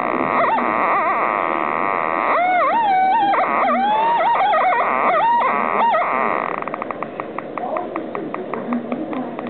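Breadboard synthesizer circuit built from an LM555 timer and LM741 op-amp oscillators, sounding through a speaker. It opens with a dense buzzing tone. From about two seconds in, the pitch swoops and warbles up and down. A little past six seconds it changes to a fast, even train of clicks.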